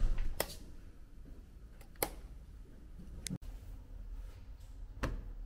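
A few soft clicks and light taps, four or five spread out at uneven intervals, over quiet room tone.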